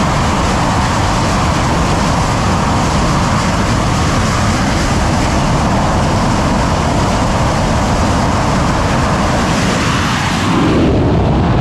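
Twin jet engines of an F/A-18 Super Hornet running at high power on a carrier's steam catapult, a steady loud rush of jet noise. About ten seconds in the sound shifts and swells as the catapult fires and the jet is launched, leaving steam venting from the track.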